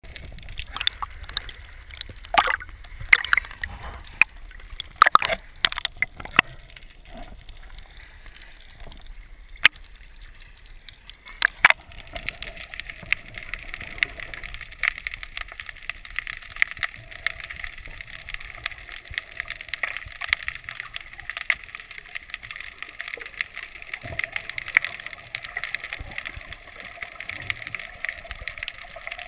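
Underwater sound picked up by a submerged camera: sharp knocks and clicks for the first twelve seconds or so, then a steady fizzing crackle with many quick faint ticks.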